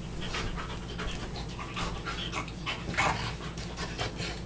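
Large shaggy dog panting in short, uneven breaths at close range.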